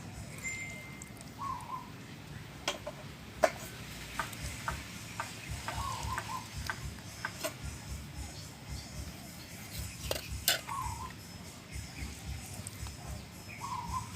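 Scattered light knocks and clicks of kitchen utensils, coming about twice a second for a few seconds in the middle, as lime goes into the salad in the mortar. A few short bird calls sound faintly in the background.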